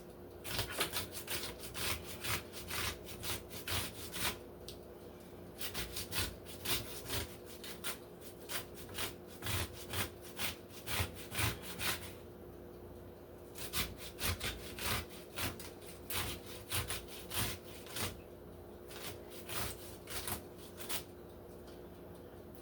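Cucumber being grated by hand on a metal grater: rhythmic rasping strokes, about two a second, in runs broken by short pauses.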